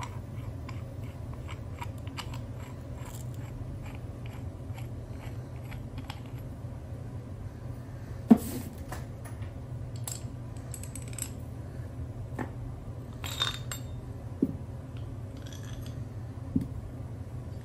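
Parts of an aluminium uniball press tool and its steel threaded rod and nut being handled and set down on a workbench: scattered light metal clicks and clinks, the sharpest about eight seconds in, over a steady low hum.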